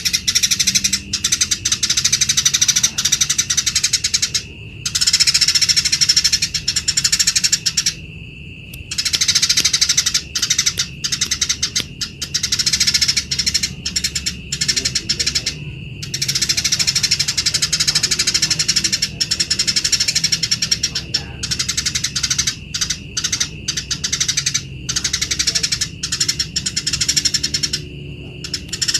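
Eurasian tree sparrows giving harsh, rasping chatter calls of the kind they make when fighting. The calls come in dense, continuous runs broken by short pauses every few seconds.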